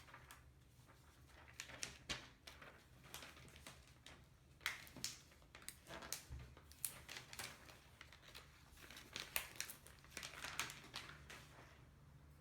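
Faint, irregular crinkling and clicking of plastic packaging as a new replacement laptop LCD panel is handled and unwrapped.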